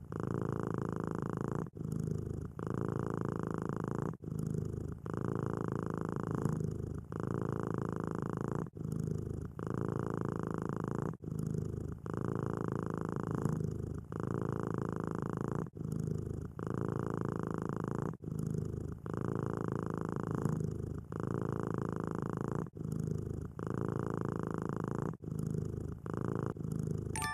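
Kitten purring steadily, the purr dropping out briefly every one to two and a half seconds.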